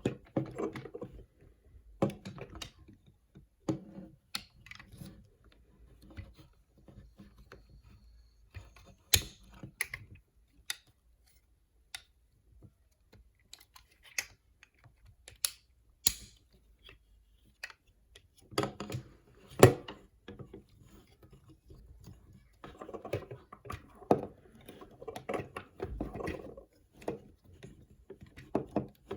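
Irregular plastic clicks, snaps and taps from a toy figure and its packaging being handled, with stretches of denser rustling and fiddling partway through and near the end.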